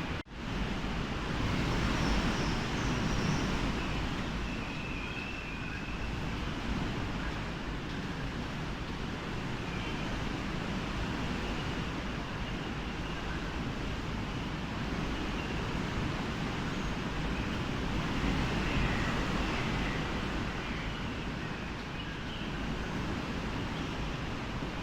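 Strong wind blowing hard against the microphone: a steady rushing noise with a deep rumble, briefly cutting out just after the start.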